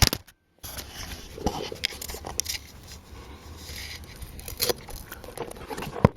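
Scattered light metallic clicks and scrapes from hand work on a lawn tractor's rear axle as the wheel's washer and cap are fitted. The sound cuts out completely for about half a second just after the start.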